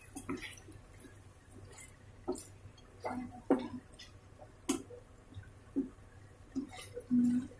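Chicken pieces frying in oil with ginger-garlic paste, sizzling and crackling, while a wooden spatula stirs them and knocks and scrapes against the pan about eight times. A short low hum sounds near the end.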